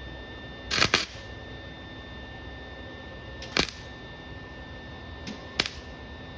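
Three short clusters of sharp clicks, about a second in, at three and a half seconds and near the end, over a steady electrical hum.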